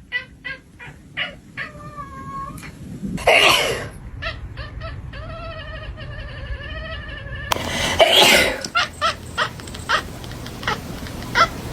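A cat's drawn-out, wavering cries, twice, with louder short noisy bursts between them and scattered clicks.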